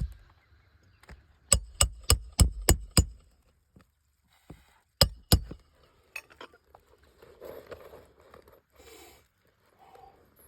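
Hammer blows driving roofing nails into asphalt shingles: a quick run of seven strikes at about four a second, then two more about two seconds later, followed by faint scraping and handling.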